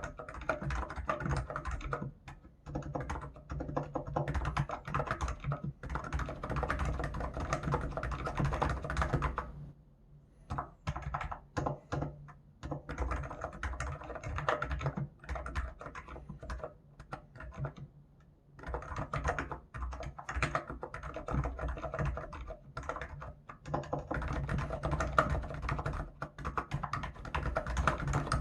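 Hansung GK989B Office Master keyboard with contactless electro-capacitive switches being typed on in fast runs of keystrokes. The typing thins to scattered single keypresses three times, a few seconds in, about a third of the way through and about two thirds of the way through.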